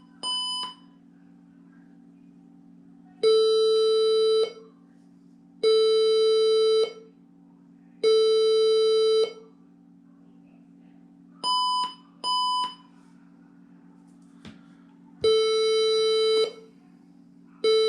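HP 20-c434 all-in-one computer's error beeps on power-up: two short higher beeps, then a run of three long lower beeps, the pattern repeating over a steady low hum. It signals a failed boot after a RAM upgrade, which the owner puts down to the new RAM not being seated properly.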